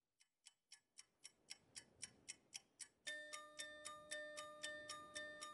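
Opening of a music track: a ticking clock, about four ticks a second, fades in and grows louder. About three seconds in, a held chord of steady tones joins under the ticking.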